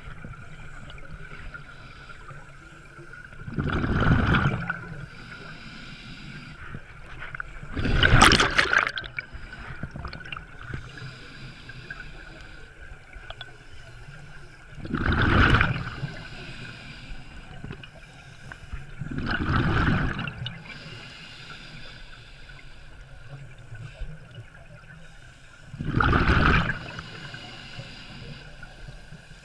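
Scuba regulator exhaust underwater: five bubbling exhalations, each about a second long and spaced four to seven seconds apart, with a faint steady tone between them.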